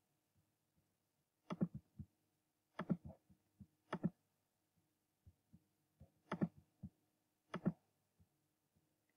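Computer mouse buttons clicking, mostly in quick pairs like double-clicks, about five times, with a few fainter single clicks between.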